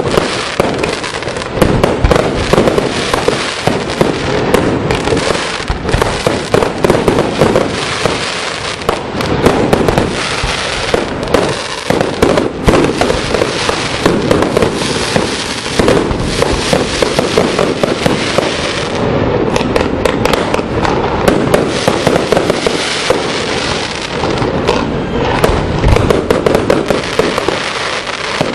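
Fireworks display: a loud, unbroken string of shells bursting, many bangs and crackles every second with no pause.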